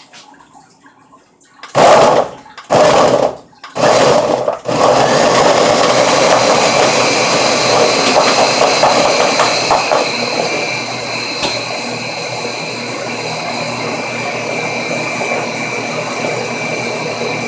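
Nutri Ninja blender pulsed three times in short bursts, then running continuously, blending frozen bananas, spinach and tofu into a thick smoothie.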